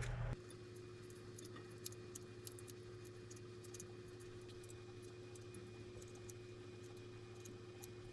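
Quiet kitchen room tone: a steady low hum with scattered faint ticks and crackles, after louder sound cuts off abruptly just under half a second in.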